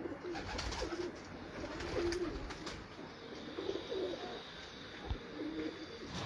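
Domestic pigeons cooing: repeated low, warbling coos, one after another every second or so.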